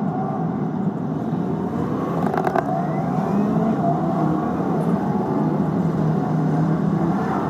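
Car cabin noise while driving slowly in city traffic: steady engine and road rumble, heard from inside the car. A short rattle of clicks comes about two seconds in.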